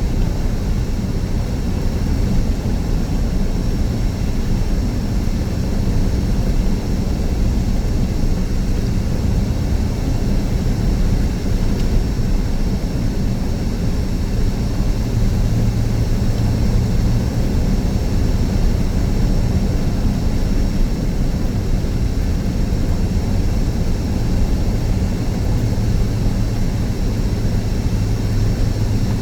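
Steady road and engine drone inside a moving car's cabin, a constant low rumble with no change in pace.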